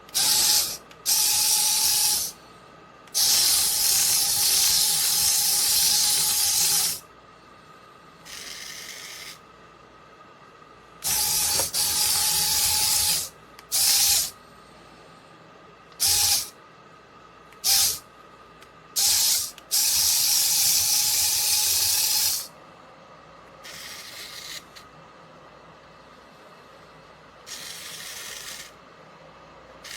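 Tiny electric gear motors of a 1:64 mini RC excavator toy whirring in on-off bursts as it is worked by remote. Some runs last a few seconds, others are brief blips, and a few quieter, thinner whirs come between them.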